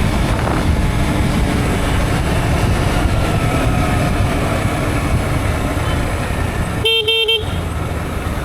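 Steady road-traffic noise, with a vehicle horn giving a quick triple toot about seven seconds in.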